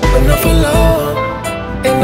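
Music: a pop song with a steady bass beat.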